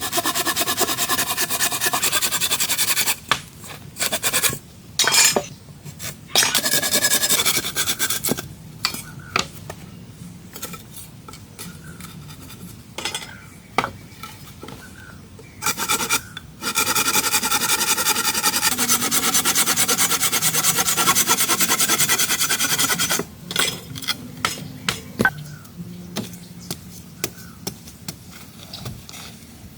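A hand tool scraping through wood in long, steady runs, three of them lasting several seconds, with shorter scrapes and scattered knocks between.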